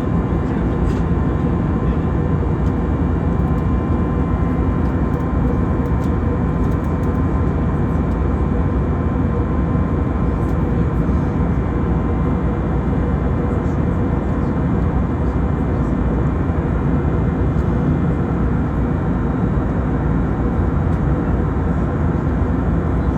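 Airbus A320neo cabin noise from a forward window seat: the steady rush of the engines and airflow after takeoff, with a faint steady hum tone, and no change in level throughout.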